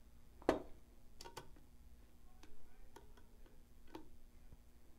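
Scattered small clicks and taps of a flathead screwdriver working pan head screws into a SmartPoint back plate on its mounting bracket, with one louder knock about half a second in.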